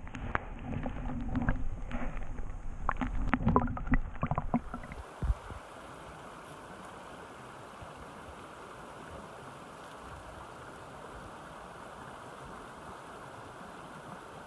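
Underwater audio of a small stream: muffled rushing water with a low rumble and a run of sharp clicks and knocks. About five seconds in it changes abruptly to the steady sound of the mountain stream flowing over rocks, heard from the bank.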